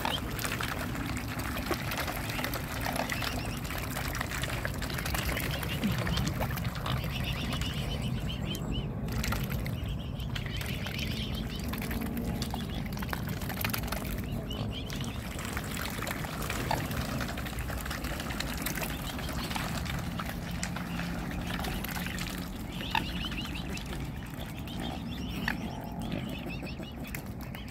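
Mute swans and cygnets feeding in shallow water, their bills dabbling and splashing steadily.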